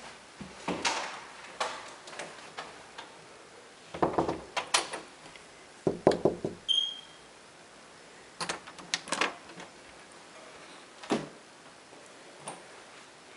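Interior closet doors being handled, opened and shut: scattered knocks and clatters in small clusters, with one brief high squeak about seven seconds in.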